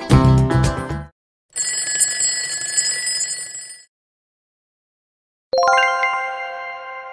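Background music cuts off about a second in, then a bell rings for about two seconds as a time's-up alarm at the end of the countdown. Near the end a single bright chime is struck and rings on, slowly fading, marking the answer reveal.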